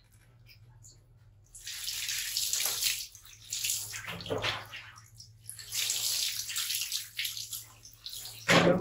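Water poured from a plastic scoop over a wet baby monkey, splashing onto it and the tiled floor in three pours of a second or two each, with a quiet start and a short louder burst near the end.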